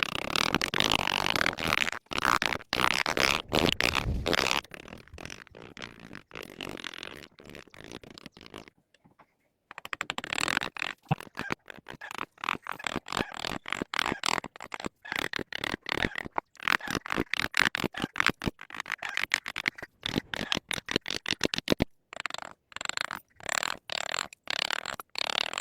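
Carving tool scraping and cutting wood in quick, repeated strokes, with a short pause about nine seconds in.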